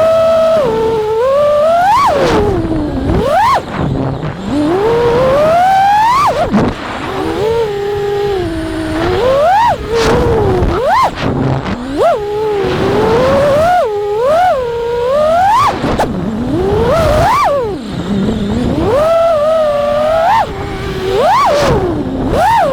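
Motor and propeller whine of a 5-inch FPV racing quadcopter with T-Motor F60 Pro IV 1750kv motors and three-blade props. The pitch rises and falls constantly, with many quick sharp climbs as the throttle is punched and chopped. Low wind buffeting on the microphone runs underneath.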